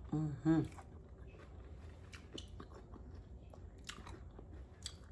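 Close-miked eating sounds: soft chewing and wet lip smacks with a few sharper mouth clicks, after a brief voiced sound near the start.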